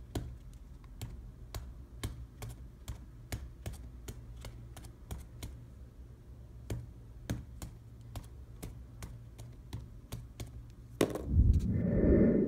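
Faint, sharp clicks, a few a second at uneven spacing, over a low steady hum. About eleven seconds in, a louder low rumble of handling lasts about a second and a half.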